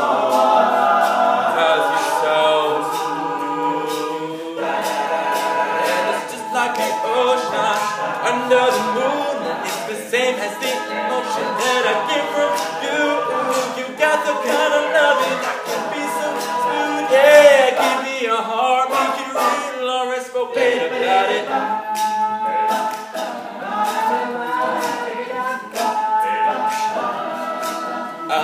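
All-male a cappella group singing in harmony, voices standing in for the band, with sharp percussive clicks from vocal percussion keeping a beat.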